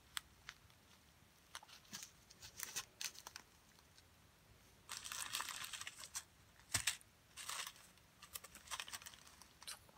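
Small plastic bags of square diamond-painting drills crinkling and rustling as they are handled, with scattered light clicks and two longer bursts of rustling about five and seven and a half seconds in.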